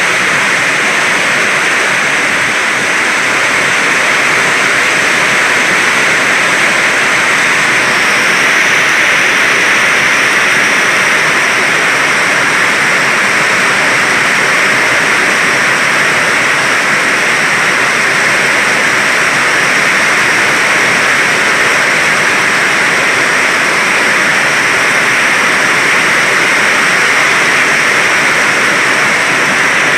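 Heavy storm rain pouring down steadily in a loud, unbroken hiss.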